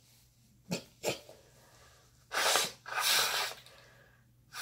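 A woman blowing her nose into a tissue: two forceful blows a little past halfway, and a third starting right at the end.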